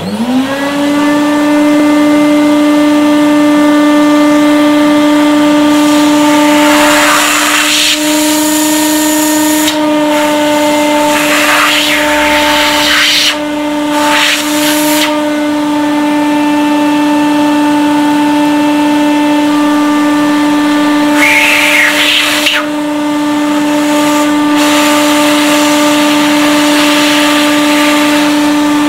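Household vacuum cleaner switched on: its motor whine rises quickly and settles to a steady pitch. The rush of air swells several times as the hose nozzle is held against and moved over a compact digital camera's lens to suck dust out of it.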